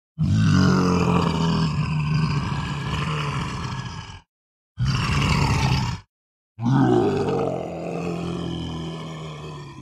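Monster growl sound effects: three separate low growls, a long one of about four seconds, a short one of just over a second, then another long one that fades out, each cut off into dead silence.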